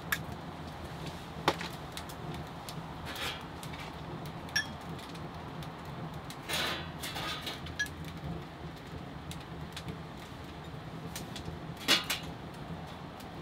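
Tableware handled on a steel camp table: sharp knocks and clinks a few seconds apart, with liquid poured into a small metal cup for about a second, six and a half seconds in, and the loudest knock near the end. A faint steady low hum runs underneath.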